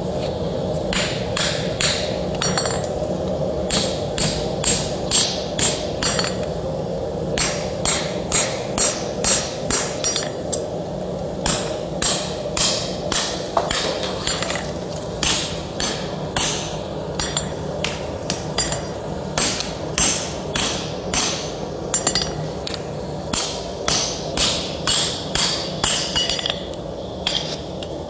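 Hammer blows on a red-hot Dane axe head held on an anvil block, steel on hot steel, in runs of about two to three strikes a second with short pauses between runs. A steady low hum runs underneath.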